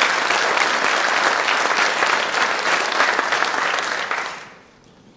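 Theatre audience applauding loudly with dense clapping. The applause dies away quickly after about four seconds.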